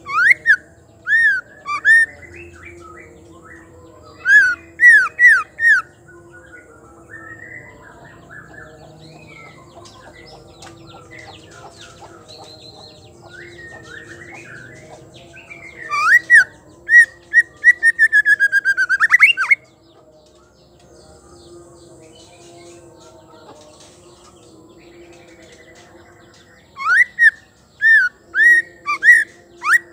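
White-rumped shama calling in four bursts of short, sharp whistles that sweep up and down in pitch. The third burst is a fast run of about a dozen notes, and other birds chirp faintly in the gaps.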